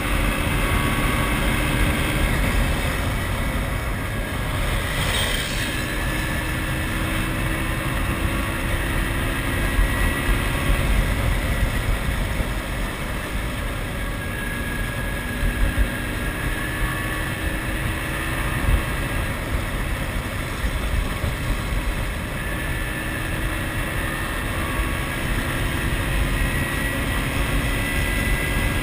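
MZ ETS 250 Trophy Sport's single-cylinder two-stroke engine running while the bike is ridden, over a dense low rumble of wind and road noise. Its pitch rises slowly several times.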